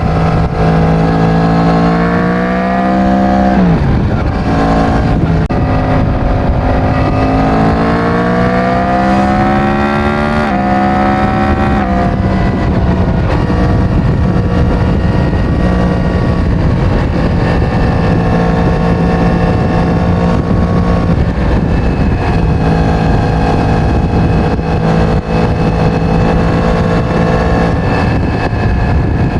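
Yamaha MT-10's crossplane inline-four on its stock exhaust, pulling hard with the pitch rising. It shifts up about four seconds in, climbs again and shifts near ten seconds, then settles into a steady cruise.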